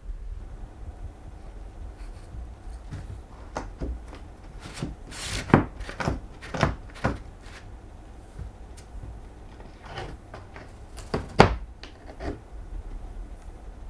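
Scattered knocks and bumps with some rubbing, as a large cat clambers about a cat scratching lodge. Two sharper knocks stand out, one a little before the middle and one late on.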